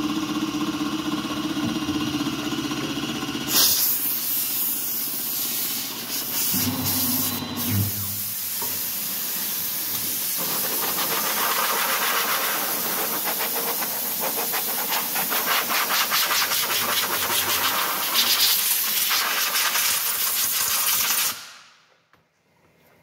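Langmuir Systems MR-1 CNC mill cutting an aluminium part, a steady whine of several tones; about four seconds in a loud hiss takes over as a hand-held hose nozzle blasts chips and coolant off the machine table, until it cuts off sharply near the end.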